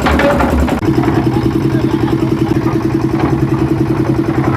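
Construction-site machinery engine running steadily with a fast pulsing beat; its note shifts and settles about a second in.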